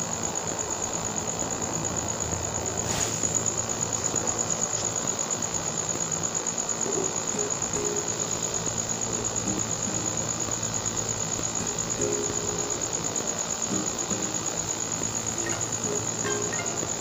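A cricket's continuous high-pitched trill, steady throughout. Light snips of scissors cutting lace fabric come in faintly near the end.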